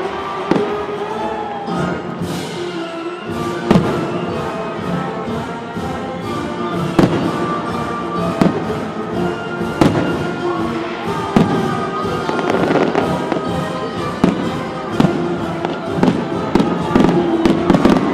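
Fireworks bursting with sharp bangs every second or two, coming faster near the end, over music with sustained tones.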